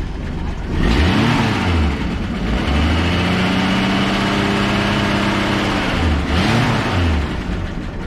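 Ford 300 cubic-inch straight-six in a 1970s F-series pickup running, blipped up in revs about a second in, held steady for a few seconds, then revved and let fall again near the end. The seller says it runs good.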